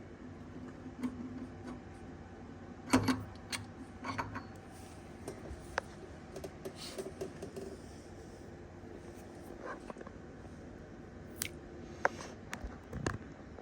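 Scattered metallic clinks and knocks of tools and parts being handled during wheel-hub and bearing work, the loudest about three seconds in, over a faint steady hum.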